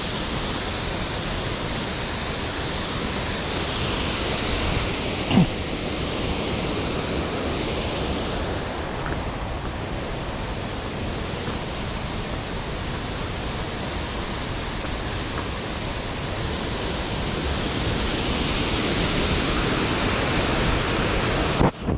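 Steady rush of flowing stream water, with one short knock about five seconds in and a sudden drop-out near the end.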